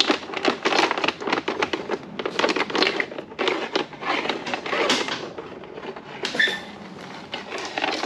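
Rapid clicking, rattling and scraping as a choke cable is worked through a scooter's plastic body panels, with a short squeak a little over six seconds in.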